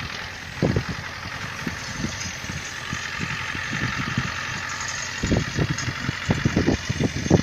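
Władimirec T-25A2 tractor's two-cylinder air-cooled diesel running steadily while it pulls a harrow, with irregular low thumps that come thick and fast in the last two seconds.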